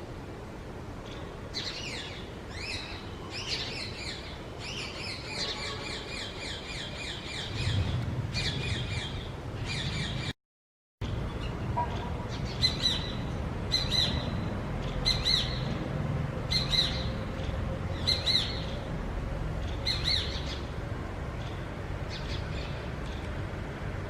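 A hawk, which the uploader takes for a shikra or kite, making repeated sharp, high-pitched calls. First comes a quick run of calls, then about halfway through single calls each falling in pitch, roughly one every second and a half, over a low background rumble.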